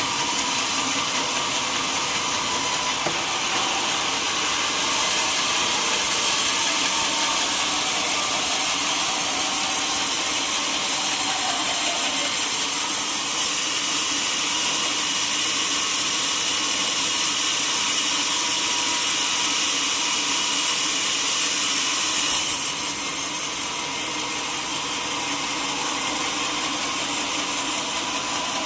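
A sawmill saw runs steadily while cutting through a teak log, with a loud, hissing cut. It grows a little louder about six seconds in and eases slightly after about twenty-two seconds.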